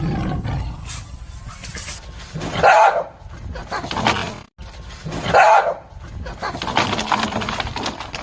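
A dog barking: two loud barks, about two and a half and five and a half seconds in, with lower background noise between.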